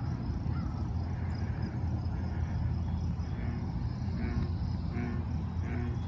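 Pond-side ambience: crickets chirping steadily over a low rumble of distant road traffic, with a frog calling a few times in the distance in the second half.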